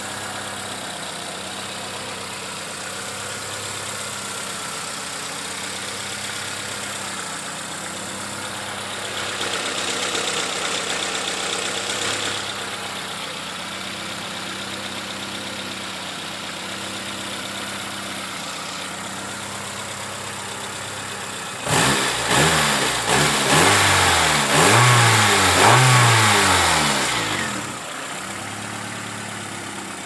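Nissan SR20DE 2.0-litre twin-cam 16-valve inline-four engine idling steadily, with a slight rise in revs about a third of the way in. About two-thirds of the way in it is revved in a series of quick blips over roughly five seconds, each rising and falling, then settles back to idle.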